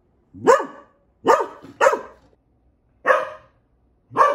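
Three-month-old golden retriever puppy barking excitedly: five short, sharp barks about a second apart, each falling in pitch.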